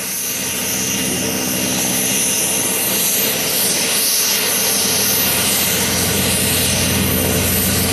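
NH90 military helicopter running on the ground with its rotor turning: a steady, loud turbine whine and rotor noise that builds over the first second or two and then holds.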